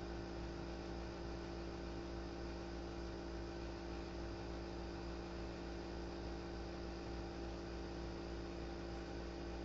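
Steady electrical hum with a faint hiss under it, unchanging throughout; no other sound stands out.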